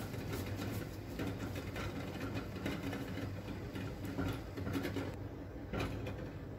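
Hands rounding and patting a ball of soft yeast-free dough on a floured granite countertop: soft irregular pats and rubbing, over a steady low hum. The handling stops about five seconds in, with one last tap shortly after.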